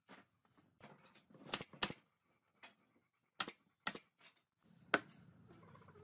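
Pine boards clacking and knocking against one another and a wooden tabletop as they are handled and set down: about seven sharp wooden clacks at irregular intervals. A faint steady background sound comes in near the end.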